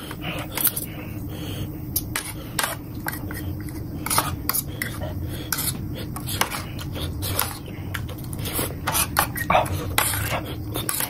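Metal fork and spoon clinking and scraping irregularly against a ceramic plate while noodles are eaten, with the mouth sounds of eating.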